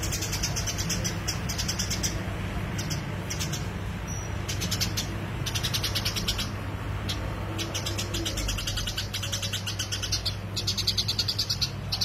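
Eurasian tree sparrow chattering in bursts of rapid, high chirps, each run lasting from half a second to about two seconds and coming again and again, over a steady low hum.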